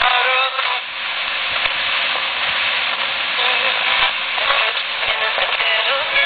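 Kaide KK1012 analog radio's speaker hissing with static as the tuning knob is turned across the TV band. Steady tones break through in the first second, and near the end a rising whistle settles into steady tones as a weak TV station comes in.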